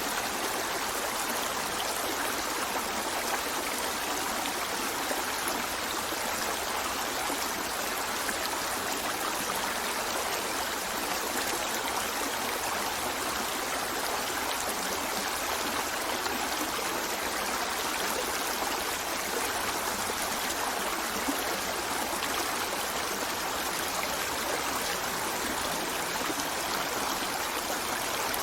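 River flowing over rocks: a steady rushing of water with a fine splashing hiss and no change throughout.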